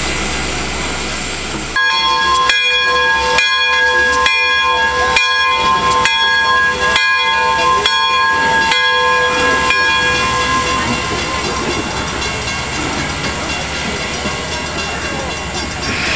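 Pere Marquette 1225's steam whistle sounding a chord of several notes in a long blast of about eight seconds, starting about two seconds in. Before and after it the locomotive hisses steadily with leaking steam.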